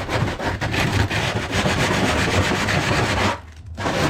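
Power tool grinding through the sheet-metal fender of a 5th-generation Toyota 4Runner to cut the snorkel hole, a dense rasping noise that breaks off briefly a little over three seconds in.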